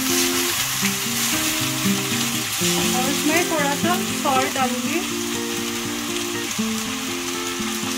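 Boiled rice and vegetables sizzling steadily as they stir-fry on high flame in a kadhai. A steel spatula stirs and scrapes the pan at the start.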